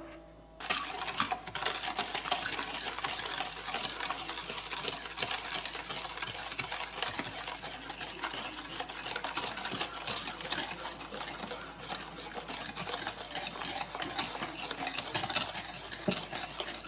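A utensil stirring rapidly in a mixing bowl, a continuous fast run of clicks and scraping against the bowl, starting about half a second in.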